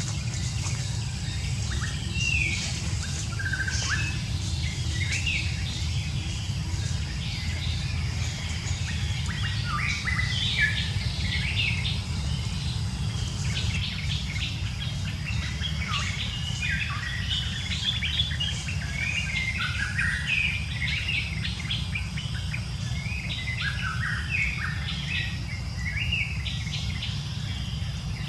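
Many birds chirping and calling in short, quick, gliding notes, busiest in the middle of the stretch, over a steady high insect drone and a constant low rumble.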